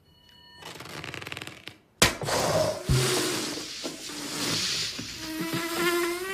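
Cartoon sound effects: a buzz that grows louder for about a second, a brief gap, then a sudden bang followed by a loud rushing hiss, with a slightly rising pitched squeal near the end.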